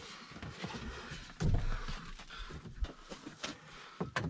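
Light clicks and knocks from hands handling the vehicle's parts, with a louder thump about a second and a half in and a sharp click near the end.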